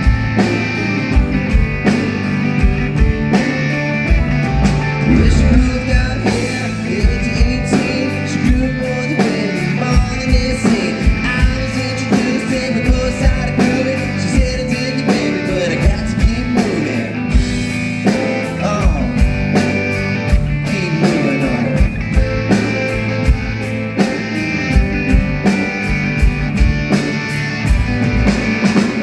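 Live rock band playing a song: drum kit keeping a steady beat under guitars, with a voice singing at times.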